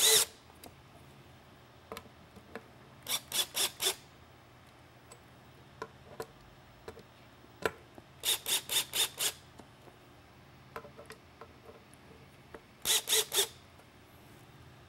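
Cordless drill/driver driving small screws down in three groups of short quick pulses, four to six pulses each, with faint clicks between the groups.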